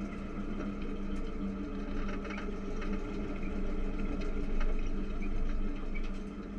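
Stock car's engine running steadily at low speed, heard from inside the caged cockpit, with a few light rattles. It swells briefly about four to five seconds in and eases off near the end.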